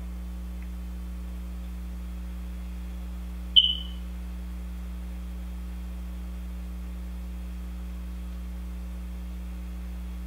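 Steady electrical mains hum made of several low pitched tones. About a third of the way in comes a single sharp click that rings briefly at a high pitch.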